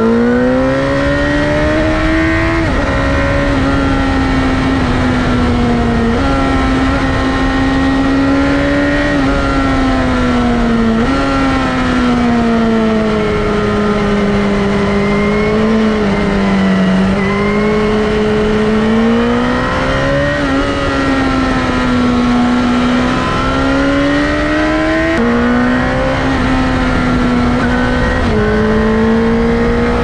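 Suzuki GSX-R1000 K1's inline-four engine heard while riding, its pitch rising and falling with the throttle and jumping suddenly several times at gear changes, over wind and road noise.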